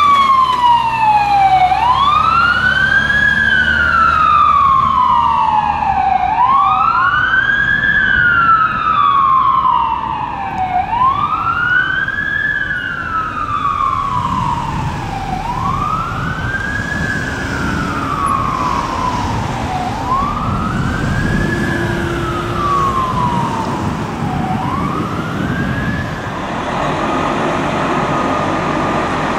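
A fire engine's siren wailing, each cycle rising quickly and then sliding slowly down, about every four and a half seconds, over the low rumble of the truck's engine. Near the end the wail stops and a different, steadier siren tone takes over.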